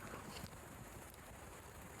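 Wood campfire crackling faintly: scattered small pops and ticks over a low steady hiss, with a slightly louder crackle in the first half-second.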